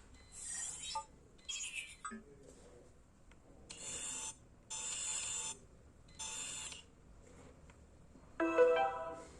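OPPO F11 Pro pop-up camera sound effects: about six short electronic tones, each under a second, played one after another with brief gaps. The last one, near the end, is the loudest.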